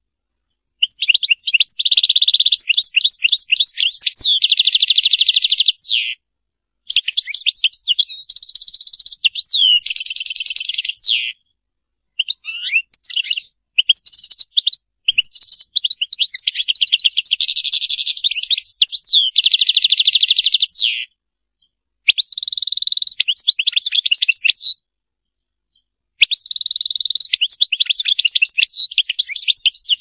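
European goldfinch singing in the Serfati song style. It gives long phrases of rapid high twittering and rolling trills, several seconds each, separated by brief pauses.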